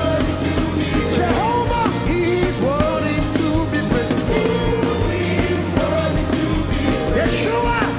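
Live gospel worship band playing, with sustained bass and keyboard chords, cymbal strokes, and a voice sliding between notes.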